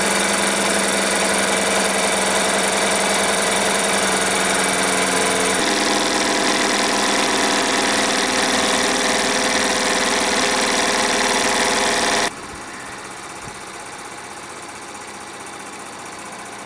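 Jensen 25G toy steam engine running steadily under live steam and belt-driving its small generator, a running whirr with a fast, even beat, working well after a full rebuild. About twelve seconds in the sound suddenly becomes much quieter but carries on.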